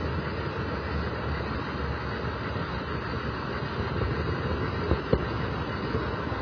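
Model train rolling along the track, picked up by a camera riding on the train: a steady rumble of wheels and drive, with two quick clicks about five seconds in as the wheels pass over rail joints or a turnout.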